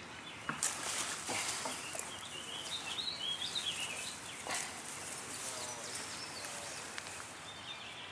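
Grass and dry leaf litter rustling as a snake is grabbed by hand and pulled out of the undergrowth, with a few sharp rustles in the first couple of seconds. A bird sings briefly around the middle.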